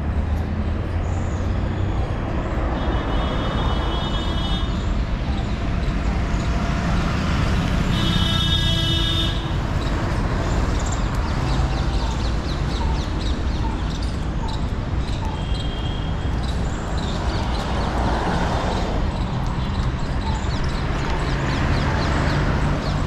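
Steady road traffic noise from passing engines, with a vehicle horn sounding for about a second and a half about eight seconds in.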